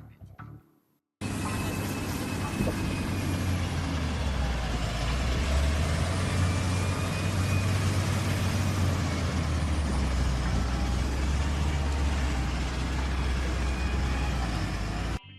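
A motor vehicle driving: a steady low engine and road rumble with a hiss over it. It cuts in abruptly about a second in and stops abruptly just before the end.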